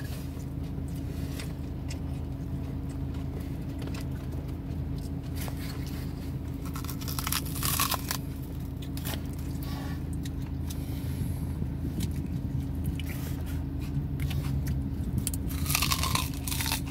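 Raw white onion crunching as it is bitten and chewed, with two loud bites, one about halfway through and one near the end, and smaller crunches between. Under it runs a steady low hum inside the car's cabin.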